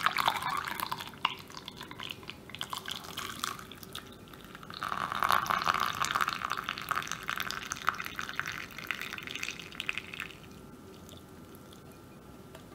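Milk tea poured from a pan through a fine-mesh metal strainer into a glass measuring jug, splashing and frothing. The stream dies away about ten seconds in, leaving only a few drips.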